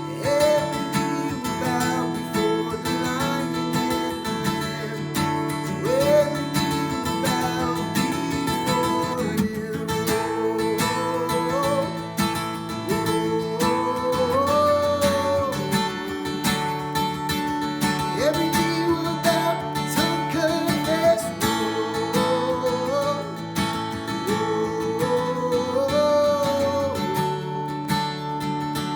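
Worship-band music: strummed acoustic guitar chords under a gliding melody line, playing steadily.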